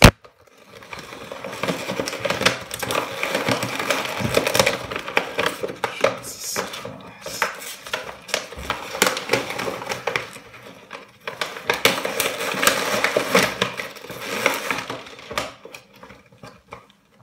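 Continuous handling noise of cardboard and plastic packaging as a boxed action figure is opened: dense rustling, crinkling and scraping with many sharp clicks, easing off briefly midway and again near the end.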